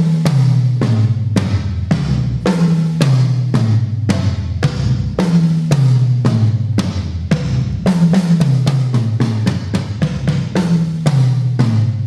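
TAMA drum kit played hard in a steady groove, with bass drum, snare and cymbals, starting abruptly. Under the hits runs a low note pattern that steps downward and repeats about every second and a half.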